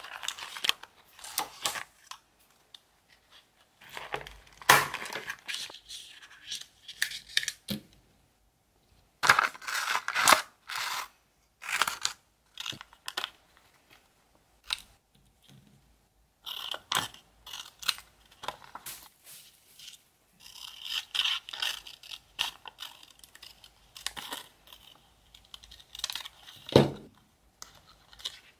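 Close-up paper and plastic handling: a crinkly plastic sleeve and magazine pages rustling, and scissors snipping out a magazine photo. It comes in irregular bursts with short silent gaps, with one louder knock near the end.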